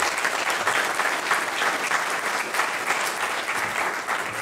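Audience applauding: many hands clapping in a dense, steady patter that thins a little toward the end.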